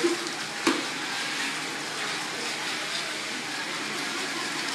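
Steady rush of water churned up by small RC powerboats racing in a plastic-lined tank, with a single sharp knock about two-thirds of a second in.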